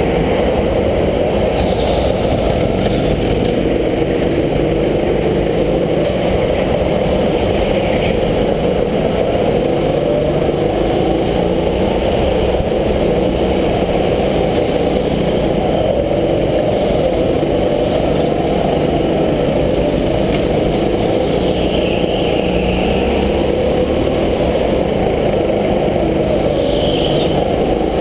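Rental go-kart engines running hard, the engine pitch rising and falling through the corners, heard close up from the driver's helmet. A few brief higher squeals cut in, one near the start and two near the end.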